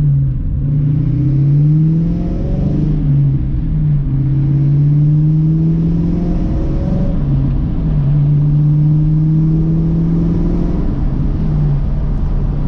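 Car engine pulling hard under acceleration, its note climbing in each gear and dropping back at upshifts about three, seven and eleven seconds in.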